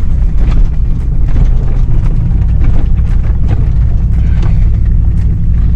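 An old Chevy truck on 37-inch tyres driving a rough off-road trail: a steady, loud low rumble from the engine and drivetrain, with scattered knocks and rattles from the bumps.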